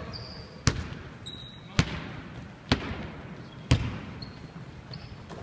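Basketball dribbled slowly on a hardwood gym floor: four bounces about a second apart, each echoing briefly in the hall.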